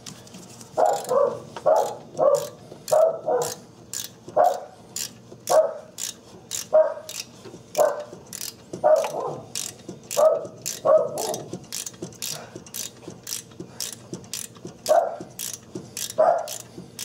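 Ratchet wrench clicking steadily, about two clicks a second, as it turns a seal puller to draw the old camshaft seal out of its bore. Louder short barks from a dog come and go over the clicking.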